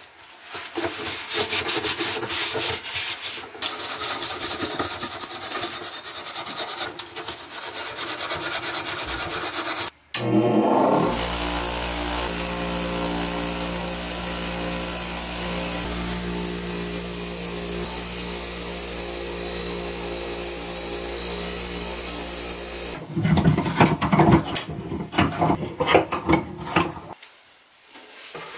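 Paper towel rubbing and wiping rusty antique hair-straightening tongs on a metal tray, in several short bursts. About ten seconds in, a bench grinder's wire wheel starts with a steady motor hum and hiss as the tongs' rusty jaws are pressed against it to scour off rust. It stops about 23 seconds in, followed by a few seconds of irregular scuffing and handling noises.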